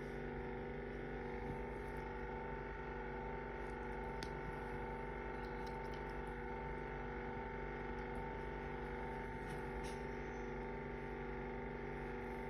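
Steady hum with several fixed pitches from a space heater running after being knocked over and broken, with a few faint clicks.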